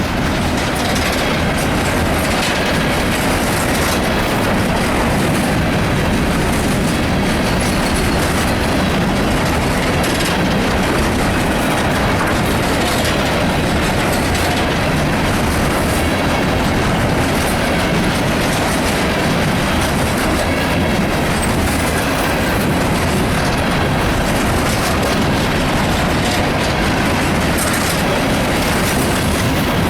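Empty coal hopper cars of a CSX freight train rolling steadily past at close range, a continuous loud rumble with wheels clattering over the rail joints.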